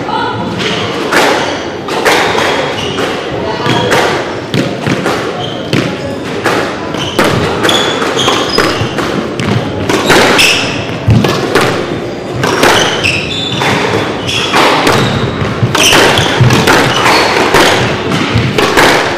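Squash rally: the ball striking rackets and the walls in a long irregular run of sharp thumps, with short high squeaks from shoes on the wooden court floor.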